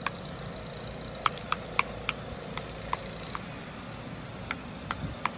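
Scattered light metallic clicks and ticks, about a dozen at uneven intervals, over a steady low background noise.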